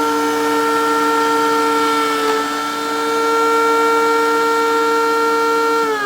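DeWalt portable thickness planer running with a steady, high-pitched motor whine and the rush of its cutterhead. Its pitch dips briefly about two seconds in. Near the end it is switched off and winds down in a falling whine.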